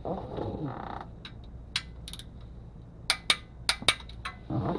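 Hand tools working the transmission pan bolts: a creak, then a scattering of sharp, irregularly spaced metallic clicks like a ratchet or wrench, with a louder knock near the end.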